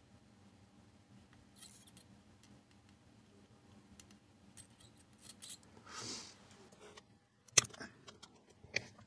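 Faint hand-soldering sounds on a circuit board: small scattered ticks over a low steady hum, a short hiss about six seconds in, then a sharp click near the end as the tools are taken away.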